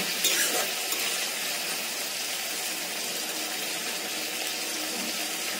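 Sliced onions and tomatoes sizzling steadily in hot oil in a kadhai, with a brief scrape of the spatula stirring them near the start.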